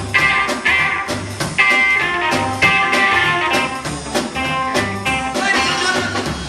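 Live rockabilly band playing an instrumental vamp: electric guitar over a steady drum beat and upright bass.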